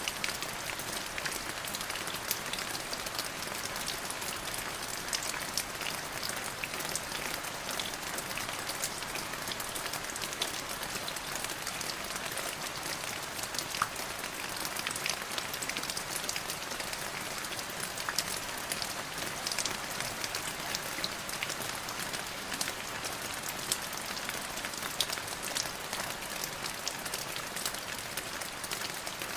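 Steady rain falling, a dense even hiss with many separate drops ticking sharply on a hard surface throughout.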